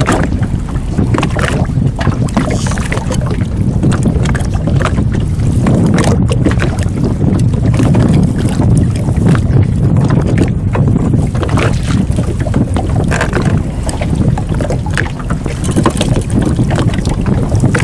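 Steady low rumble of wind on the microphone aboard a small open boat, with scattered small knocks and splashes as a fish is worked into a landing net.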